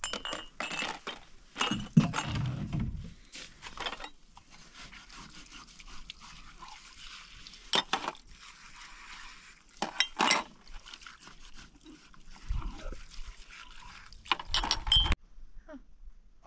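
Dishes and cutlery being washed by hand: metal pots and utensils clinking and knocking against each other several times, with the loudest clatter near the end, and a faint wash of water between the clinks.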